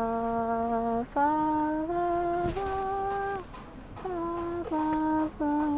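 A young man humming a slow, drowsy tune in long held notes, climbing step by step over the first few notes, then pausing briefly and stepping back down.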